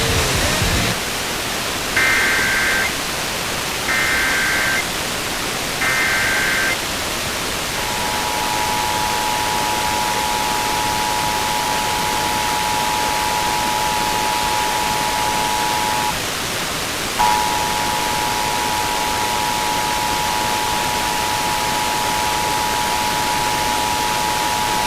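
Emergency Alert System tones received over an FM radio with a constant static hiss. First come three one-second warbling data bursts of the SAME header, then the EAS two-tone attention signal. The attention signal runs about eight seconds, drops out for about a second, and comes back for about eight more.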